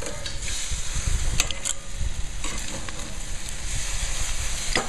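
Scored calamari pieces sizzling steadily on hot grill grates, with a few sharp clicks about a second and a half in and again near the end.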